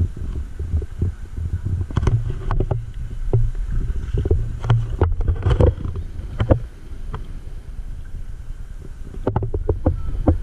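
Irregular splashing of someone wading through shallow river water, over a steady low rumble.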